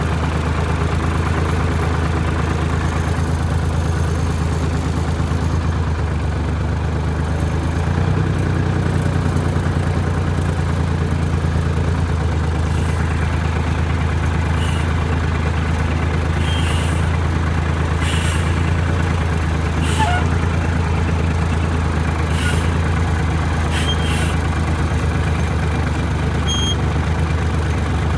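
Loader's engine running steadily in low gear while pushing a heavy log, its note shifting about 8 seconds in, with several short high squeaks in the second half.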